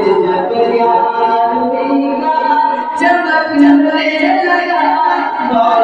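A man singing a manqabat, an Urdu devotional praise song, without instruments into a microphone, in long held notes that glide between pitches.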